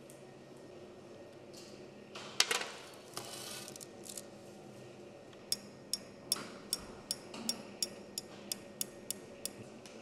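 A sugar sifter dusting powdered sugar over a puff-pastry tree, heard as an even run of about a dozen sharp clicks, roughly three a second. A single loud clack comes a few seconds before it.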